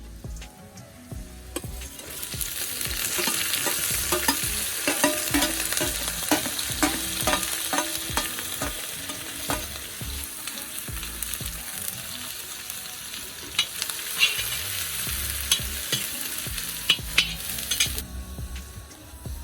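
Food sizzling in hot oil in a pan, with a utensil clicking and scraping against the pan as it is stirred. The sizzle swells up about two seconds in and cuts off suddenly near the end.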